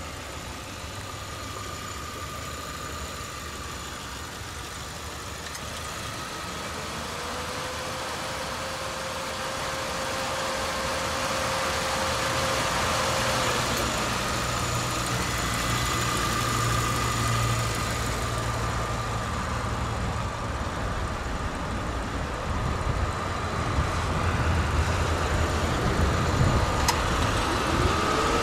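2014 Haima M3's 1.5-litre 16-valve inline-four engine idling steadily with the bonnet open, slowly growing louder. A faint whine rises and then holds for several seconds about a quarter of the way in.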